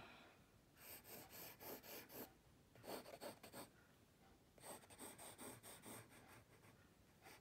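Faint pencil scratching on drawing paper in short, quick strokes, coming in several runs with short pauses between.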